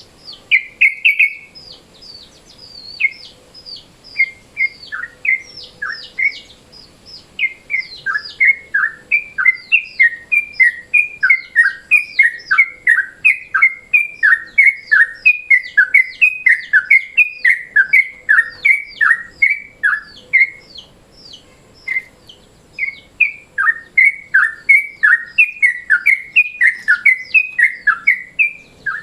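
Yellow-vented bulbul (trucukan) singing: a long, busy run of short, loud chirps that slide downward, about two to three a second, with brief lulls. It is the daytime song used as a lure call for catching bulbuls.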